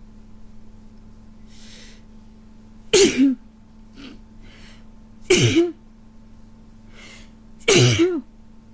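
A person with a cold sneezing three times, about two and a half seconds apart, with sharp breaths drawn in before the sneezes.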